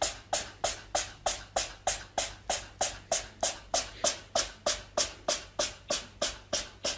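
A cat chattering with its mouth open: a long, even run of short, breathy, hissing clicks, about three a second.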